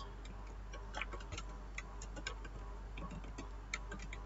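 Computer keyboard keys tapped in short irregular clicks, about three a second, as text is deleted and rearranged in a form field.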